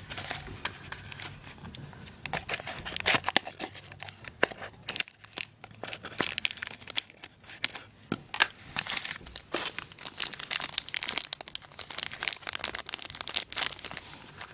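Clear plastic bag crinkling and a small cardboard box rustling as hands open the packaging and handle the part inside: irregular crackles, with a brief lull about five seconds in.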